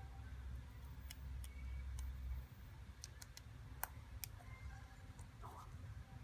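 Faint scattered small plastic clicks and ticks as a 14-pin test cable's connector is fitted into an LCD panel's input socket by hand. A low rumble stops about halfway through.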